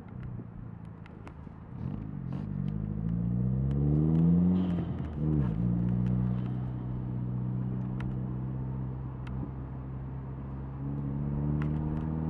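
Turbocharged 1.8-litre four-cylinder of a VW Bora with a K04 turbo and 3-inch stainless exhaust, heard from inside the cabin as the car drives. The engine note climbs for a couple of seconds, drops and comes straight back about five seconds in, holds steady, then rises again near the end.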